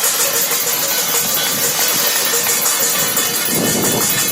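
Many people clapping in a continuous din, mixed with steady metallic jingling and ringing.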